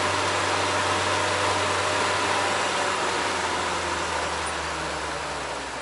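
UAZ off-road vehicle driving, heard from inside the cabin: steady engine hum and road noise, growing quieter over the last couple of seconds as it slows.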